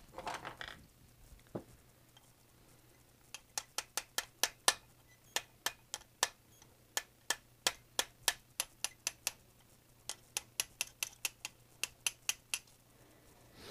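Ball-peen hammer tapping lightly on a steel pin punch to drive out the pin holding the air rifle's trigger block: quick, sharp metal taps at about three a second, in two runs with a short pause between.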